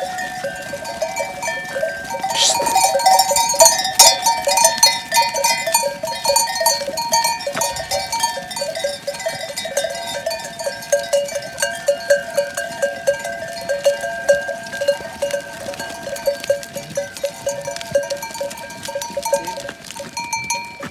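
Many bells on a herd of goats clanking and jingling together as the goats walk, with a short goat bleat about two and a half seconds in.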